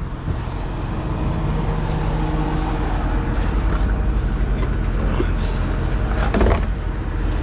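A diesel truck engine idling steadily, with a brief clatter of knocks about six and a half seconds in.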